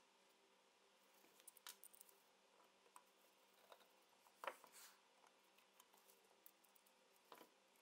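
Near silence broken by a few faint taps and rustles as gloved hands set a small spring-loaded metal shotgun part down on a paper towel; the clearest tap comes a little past halfway.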